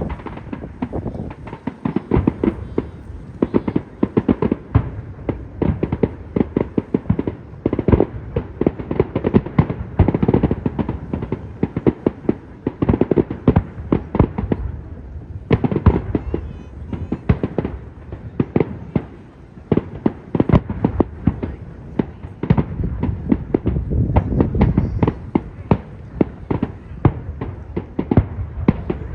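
Fireworks display going off in a dense, unbroken run of bangs and crackles, several a second.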